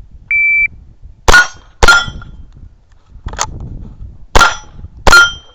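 Shot timer's start beep, then five quick .22 rimfire shots at irregular spacing, most followed by the ring of the steel targets being hit.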